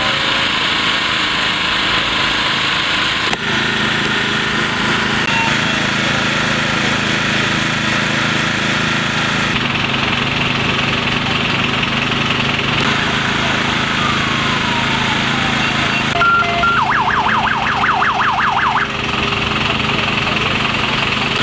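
Engines of emergency vehicles running steadily at the scene of a street accident. About three-quarters of the way through, a siren warbles quickly for about two seconds.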